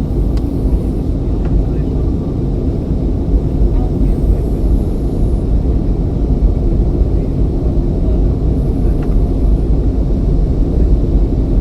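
Steady low roar of an airliner's cabin noise during descent, engines and airflow, with a few faint clicks.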